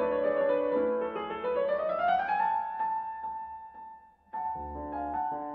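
Background piano music with sustained notes, fading almost to silence about four seconds in and starting again abruptly a moment later.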